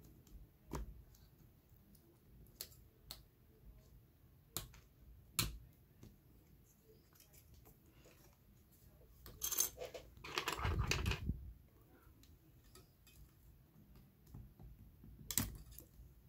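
Small, scattered plastic clicks and taps as a plastic opening pick pries at the iPad Air 2's press-fit display connectors on the logic board, with a longer scraping rustle about ten seconds in.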